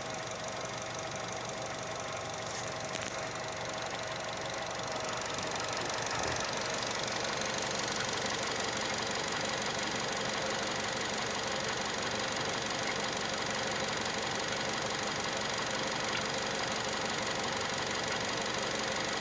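JF11E engine running steadily at raised revs, picking up slightly a few seconds in, with a scraping, squeaking, clicking mechanical noise, a fault the owner is trying to track down.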